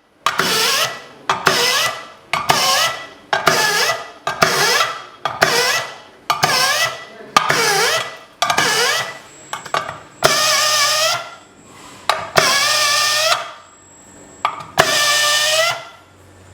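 BIAX BE 805 straight deburring tool cutting in repeated short bursts: nine brief runs about a second apart, then three longer ones. Each run is a hissy grinding with a whine whose pitch shifts as the cutter works the hole edge.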